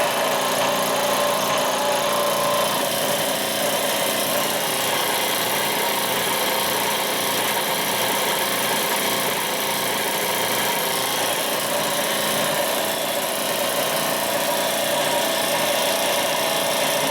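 Shop machine running steadily, an even mechanical hum and whir with fixed tones and no change in level.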